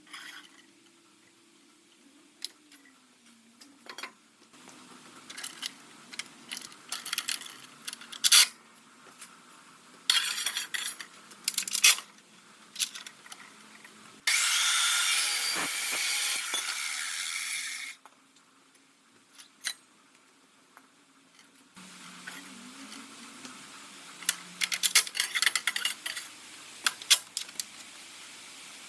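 Workshop handling sounds: sharp clanks, knocks and scraping of tools and steel parts, with a steady hiss lasting about four seconds midway.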